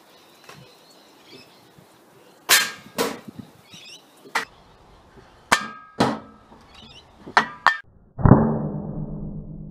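A run of sharp metallic clicks and knocks, then about 8 seconds in a loud metallic clang as the air rifle pellet hits the empty butane gas cylinder and knocks it over onto the steel toolbox, leaving a ringing that fades slowly.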